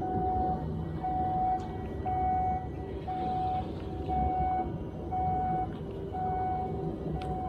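An electronic warning beeper sounding about once a second, each beep a single steady tone of roughly half a second, over a steady low rumble.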